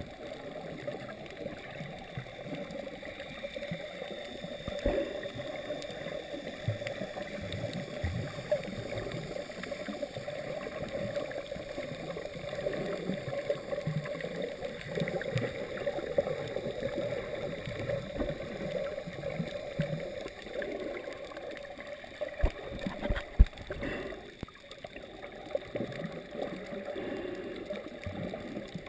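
Muffled underwater noise from a camera held under the sea: a steady low wash of moving water against the camera, with a few sharp knocks a few seconds before the end.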